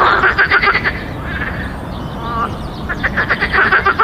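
Frogs croaking in fast pulsed calls, about ten pulses a second. There is one bout in the first second and another over the last second, with a short trill between them.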